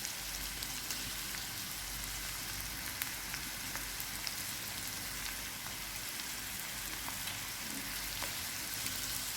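Chopped onion, capsicum, carrot and spring onion sizzling steadily in hot oil in a frying pan as they sauté, with a few faint ticks.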